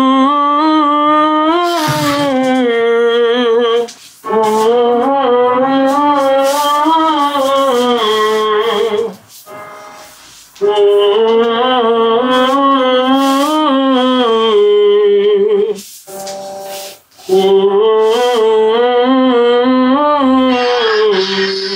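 A wordless vocal melody of long held notes with vibrato, in four phrases broken by short pauses.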